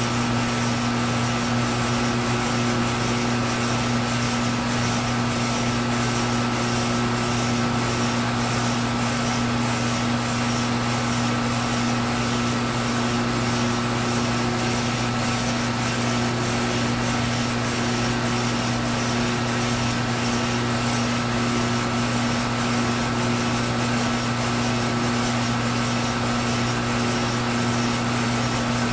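Milling cutter facing the end of a fibreglass stern tube: a steady machine hum under a continuous rough scraping cut, with an even ticking repeating throughout.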